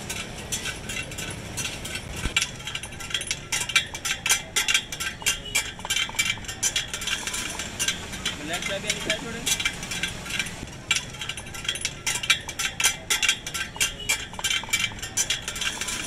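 Small metal clicks and clinks of a spoke wrench on the nipples and steel spokes of a motorcycle spoke wheel as the spokes are adjusted on a truing stand, coming as a quick, irregular run of ticks with a short pause partway through.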